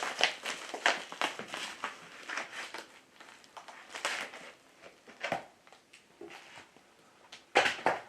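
Plastic packaging crinkling and rustling in hands as a small boxed item is pulled out, in irregular scratchy bursts, with the loudest crackle near the end.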